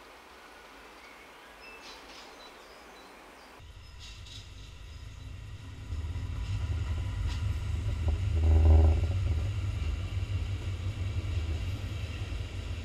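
Steam express locomotive 18 201 and its coaches running close past out of a tunnel: a deep rumble that builds over a couple of seconds, then stays loud as the train goes by. It peaks briefly about nine seconds in. Before it, a few seconds of quiet ambience with faint birdsong.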